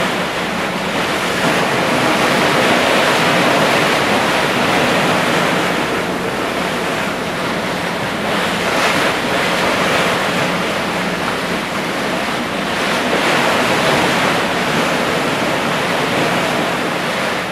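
Open-ocean sea noise from a ship: a steady rush of water and wind, swelling and easing every few seconds.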